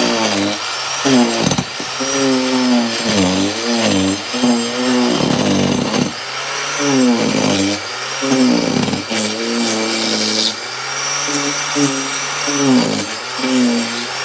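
Handheld electric power tool working on rotted wood, its motor pitch repeatedly dropping under load and climbing back as it frees up.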